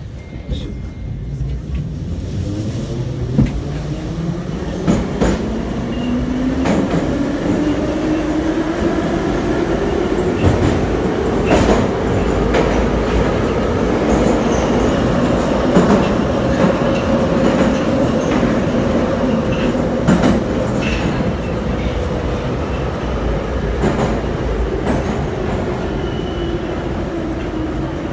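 Em-501-series (81-501/502/503) metro car running between stations: a whine from the drive climbs in pitch as the train pulls away and gathers speed, then sinks slowly as it slows for the next station. Rumble from the track runs beneath it, with scattered clacks of the wheels over rail joints.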